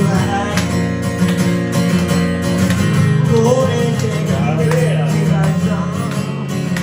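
Acoustic guitar strumming steadily in an instrumental passage of a song, with a melody line that bends in pitch over it midway through.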